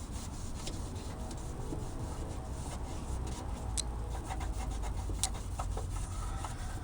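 Baking soda and vinegar paste being rubbed back and forth over a plastic turn signal lens, a steady scratchy scrubbing, with a few sharp ticks and a low rumble underneath.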